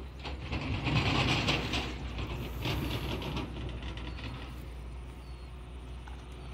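Spinning fishing reel being cranked, its gears clattering in a quick even rhythm in two spells over the first few seconds.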